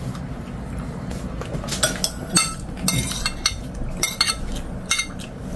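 Tableware clinking during a meal: a metal spoon and chopsticks tapping and scraping against ceramic bowls, plates and a pot. The clinks come in a scattered run of short, ringing taps, starting about two seconds in.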